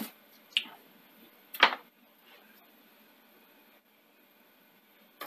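Three short sharp clicks from hands on the opened-up VHS recorder, the loudest about a second and a half in, then a faint hiss.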